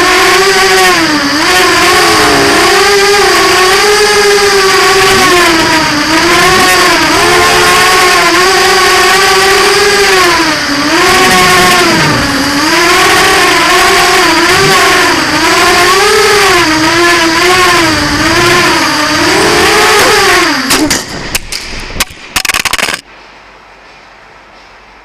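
Racing quadcopter's brushless motors (EMAX MT2204 II) spinning 5045 bullnose props: a loud buzzing whine that keeps rising and falling in pitch as the throttle changes. Near the end it breaks up into choppy bursts and then cuts out suddenly, as in a crash that bent the props.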